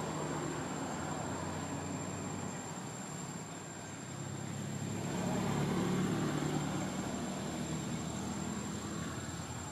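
Motor vehicle engine hum, steady and low, swelling about five seconds in and easing off again, with a thin steady high whine above it.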